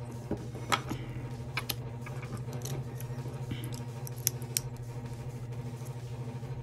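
Small plastic clicks and scrapes as the battery and juice tank of a Fume Infinity disposable vape are worked back into its plastic shell and bottom cap, over a steady low hum.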